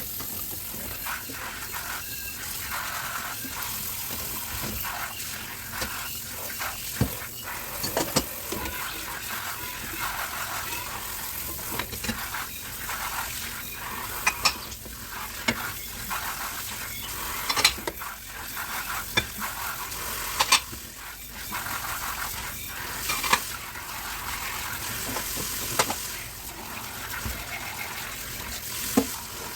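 Dishes being washed at a kitchen sink: a steady hiss of water and scrubbing with frequent sharp clinks of dishes and cutlery knocking together.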